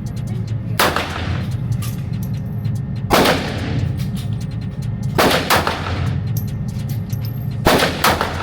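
Pistol shots fired one at a time at an irregular pace, about six loud ones including two quick pairs, echoing in an indoor range, with fainter shots from neighbouring lanes and a steady low hum underneath.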